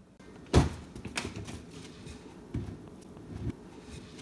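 Handling noise from a plush cushion being put down into a plastic toy bed: a sharp knock about half a second in, then light clicks, two soft thumps and rustling.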